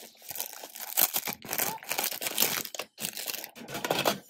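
Plastic packaging crinkling and tearing as it is handled, in irregular bursts with a short break about three seconds in.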